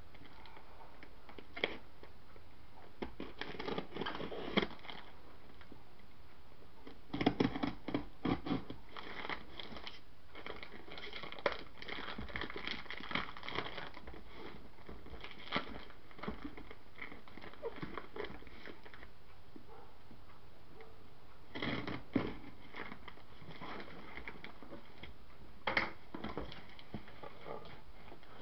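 Paper wrapping and a cardboard box being handled and opened by hand: irregular crinkling, crumpling and tearing in bunches with short pauses between, over a steady faint hiss.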